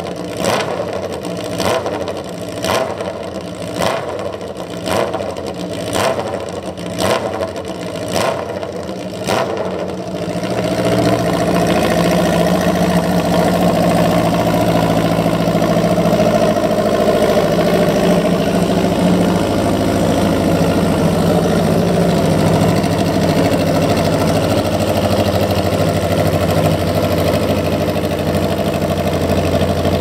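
Honda CB1000R's inline-four engine through an SC-Project exhaust, blipped about once a second for the first ten seconds. Then it runs at a steady, louder speed for the rest.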